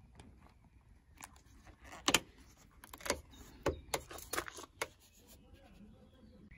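Hands working a cable behind a car's rubber door seal and plastic dashboard side trim: a run of sharp clicks, taps and rustles, most of them between about two and five seconds in.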